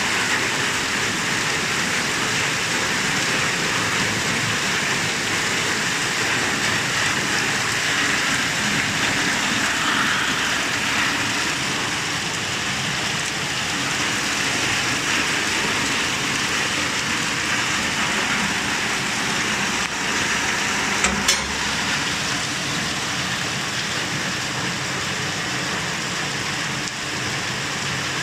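Steady rain shower falling, an even, dense hiss with no letup. About two-thirds of the way through come two quick sharp clicks.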